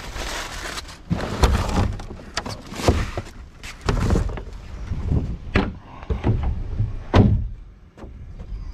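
Plastic wheelie bins being handled: lids lifted and flipped back and the bins knocked and shifted, giving a string of hollow plastic knocks and thuds, the loudest about seven seconds in.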